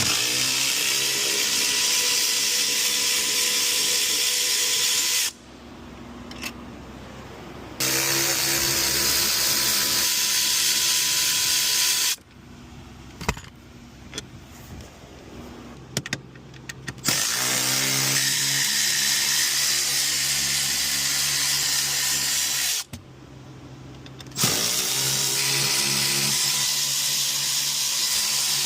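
Cordless power tool spinning out the driver's-seat mounting bolts, four runs of a few seconds each, every run rising in pitch as the motor spins up, with short handling clicks between them.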